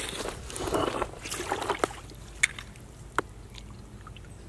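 Soft water sloshing as a caught largemouth bass is lowered by hand into shallow water at a rocky bank to be released, with a few sharp clicks along the way.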